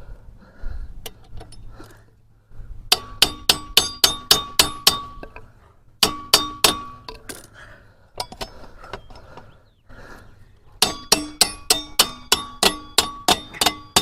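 Hammer tapping the rear axle through the swingarm and wheel: three runs of quick metal-on-metal strikes, about five a second, each leaving a short ring.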